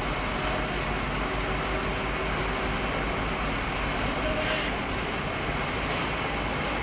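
Steady rushing noise of fire engines running and fire hoses spraying water at a fire, with a few brief louder hisses.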